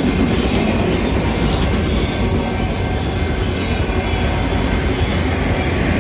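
Empty autorack freight cars of a train rolling past on steel rails, a steady wheel-and-rail noise.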